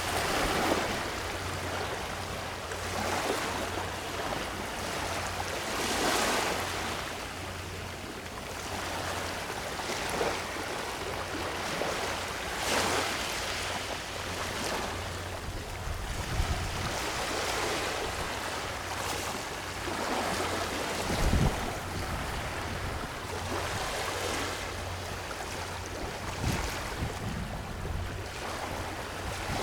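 Small waves washing onto a sandy shore near high tide, a swell of surf noise every few seconds, over a steady low rumble.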